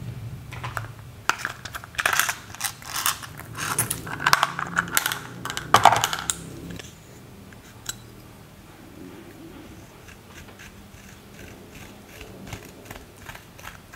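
A clear plastic case and an eyeshadow compact being handled, with sharp clicks, rattles and knocks. About six seconds in this gives way to quiet, light scratching as a pen tip scrapes the pressed eyeshadow loose in its pan.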